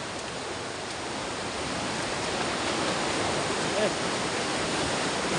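River water rushing steadily: a full, fast-flowing river swollen by rain the night before.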